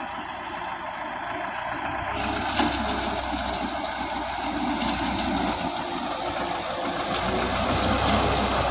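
Zetor 6711 tractor's diesel engine running steadily as it pulls a hay rake through cut hay, growing louder near the end as it comes closer.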